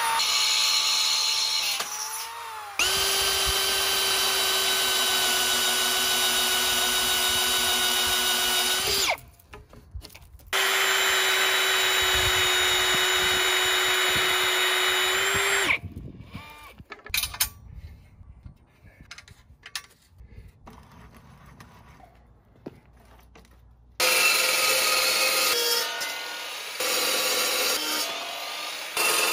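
A handheld electric drill boring into steel tube and then through a white plastic strip, running at a steady pitch in two long runs with a short stop between. After a quieter stretch of light clicks, a chop saw starts cutting steel pipe about three-quarters of the way through, loud and rasping.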